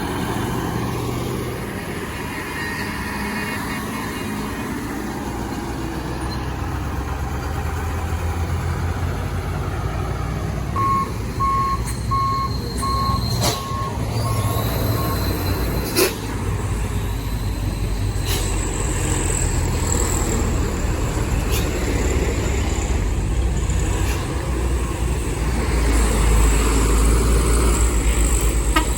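Heavy diesel truck engines running under load on a steep climb, with the low rumble getting louder near the end. About eleven seconds in there is a row of about seven evenly spaced beeps, and several short sharp hisses follow.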